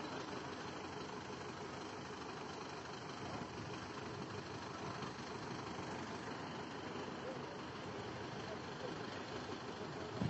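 Tractor engines idling, a steady drone, with a short knock at the very end.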